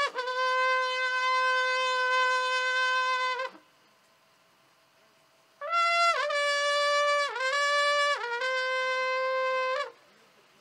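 Solo horn playing long held notes. One note swoops up into pitch and is held for about three and a half seconds. After a pause, a second phrase starts a little higher and steps down, with short dips in pitch between its notes.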